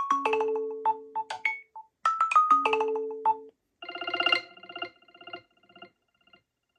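iPhone iOS 17 ringtones: a melodic chime of short mallet-like notes over held low notes plays for the first half. A short gap follows, then a different ringtone begins, a buzzy chord that pulses rapidly and fades out.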